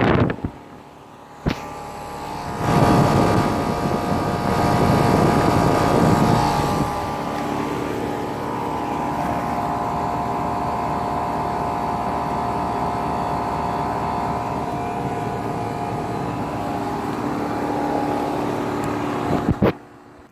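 Rheem central air conditioner outdoor condensing unit running: the steady rush of its fan with a compressor hum. A louder stretch of rushing noise runs from about three to seven seconds in, and the sound cuts off sharply near the end.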